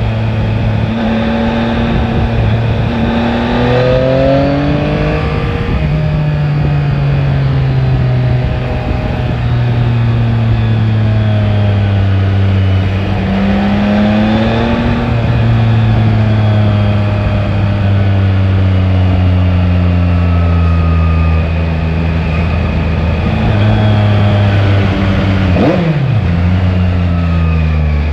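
Yamaha Tracer 9 GT's inline three-cylinder engine under way on the road, revs climbing and falling as the rider accelerates and shifts gears, with a quick throttle blip near the end and steady wind rush.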